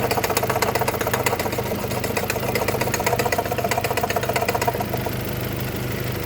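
Mazda 3 BK petrol engine idling with a fast, even knocking tick over its hum; the ticking fades out about five seconds in. The cause of the knock is unknown to the owner.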